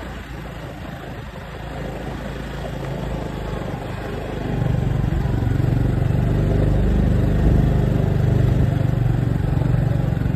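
A vehicle engine running steadily, getting louder about four and a half seconds in.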